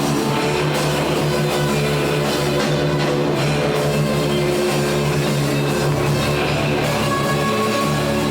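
Rock music: a band with guitar and drum kit playing at a steady, loud level.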